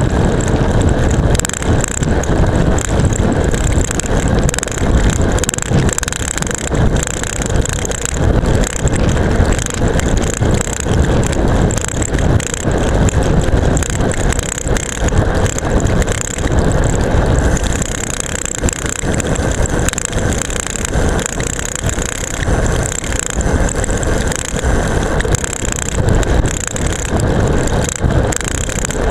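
Seatpost-mounted camera rattling hard in its strap mount on a road bike descending at speed: a constant, irregular clatter of rapid knocks over the rushing wind and tyre noise of the descent.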